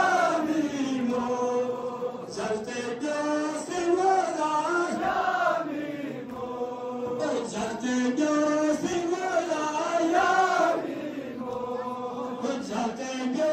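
A crowd of men chanting a Shia noha, a mourning lament, together in repeated melodic phrases that rise and fall, with short breaks between them.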